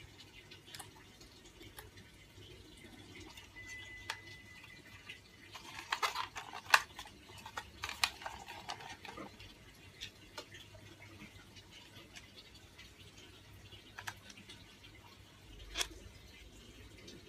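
Faint scattered clicks and rustling from hands handling small plastic parts and wiring, busiest around six to nine seconds in, with a brief steady high beep about four seconds in.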